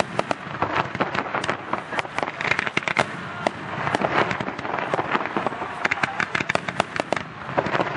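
Fireworks display: aerial shells bursting and fans of comets fired from the ground. A dense run of sharp bangs and crackling comes several times a second and is busiest in the second half.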